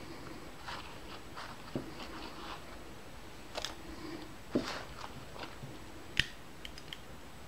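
Cubes of cooked chicken breast being added to a crock pot on top of vegetables: soft, irregular taps and clicks of food and utensil against the pot, with a few sharper knocks, the loudest about six seconds in.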